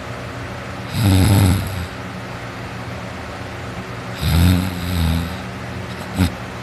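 A teenager sleeping on his back, snoring heavily: two long snores about three seconds apart, the second in two pulses, then a brief sharp catch near the end.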